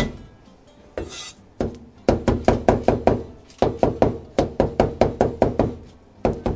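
Knife chopping ground pork and chicken on a cutting board, mincing the meat finer. A few single chops, then quick runs of about six strokes a second with short pauses between.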